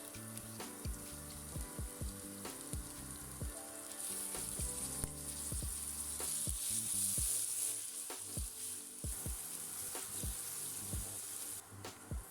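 Food frying in hot oil in a pan, a steady sizzle that swells louder about four seconds in and eases off after about eight seconds.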